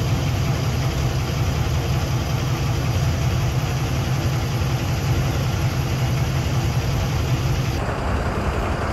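MSRTC bus's diesel engine running, a steady low rumble.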